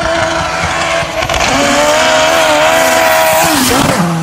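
A 1987 Fiat Uno Turbo's 1.3-litre four-cylinder, tuned to about 420 hp on a Garrett GT3076 turbo, running hard at full throttle. There is a brief break about a second in, then it holds high and steady. Near the end the pitch drops sharply as the throttle comes off, and it settles to a lower, steady engine note.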